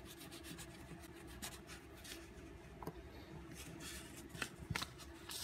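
Faint scratching of an oil pastel stick on folded drawing paper, with a few soft clicks in the second half.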